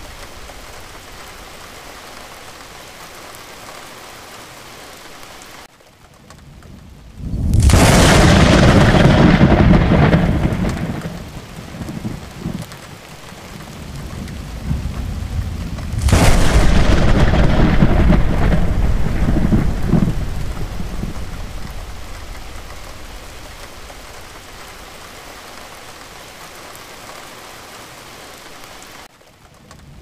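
Heavy rain falling steadily, broken by two loud thunderclaps, one about seven and a half seconds in and one about sixteen seconds in. Each starts suddenly and rumbles on, dying away over several seconds. The sound drops away briefly just before the first clap and again near the end.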